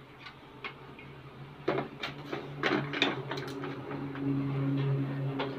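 Knocks and clatter of wooden toys being handled and set down, a run of sharp knocks in the middle, over a steady low hum that grows louder in the second half.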